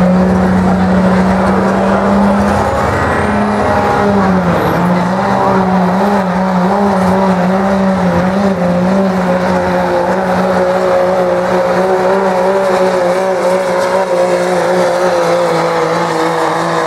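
Dodge Ram diesel pickup at full throttle, pulling a weight-transfer sled: the engine is held at high revs under heavy load, its pitch sagging briefly about four seconds in, then holding steady.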